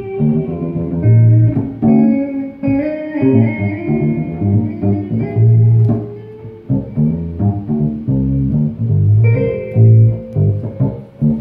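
G&L electric guitar and G&L electric bass jamming together: picked guitar notes move over a line of bass notes.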